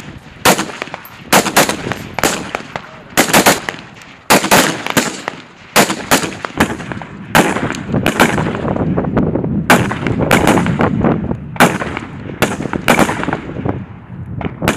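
CZ BREN 2 assault rifles firing single shots and quick pairs at an irregular pace, several rifles at once, each sharp crack trailed by a short echo.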